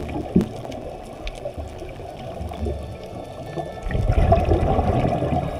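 Muffled underwater sound picked up through an action camera's waterproof housing: bubbling and gurgling water, louder for about a second near the end, with a sharp tap just after the start.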